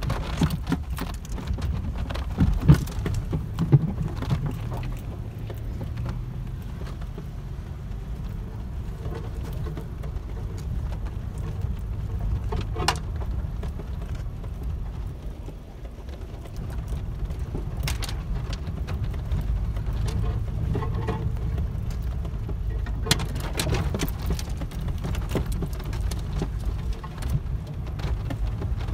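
Pickup truck driving slowly over a rough wooded dirt trail, heard from inside the cab: a steady low engine and road rumble with scattered clicks, knocks and rattles as it bounces along, and two sharper knocks a few seconds in.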